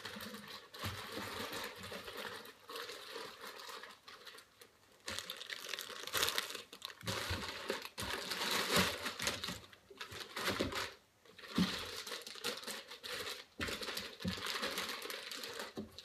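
Plastic bags of soft-plastic fishing baits crinkling as they are rummaged through and handled, in bursts with short pauses, with a few light knocks against the counter.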